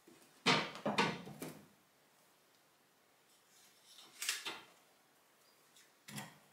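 A few short knocks and clatters of household handling: two sharper ones about half a second and a second in, a smaller group about four seconds in, and another near the end.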